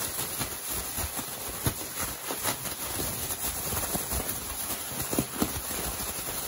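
Thin plastic bag rustling and crinkling as it is shaken and squeezed by hand, with irregular knocks of fish pieces tumbling in flour breading inside it: crucian carp being coated before frying.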